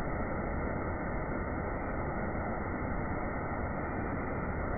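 Water trickling down a small rock waterfall that is running low in a dry spell, a steady even rushing noise.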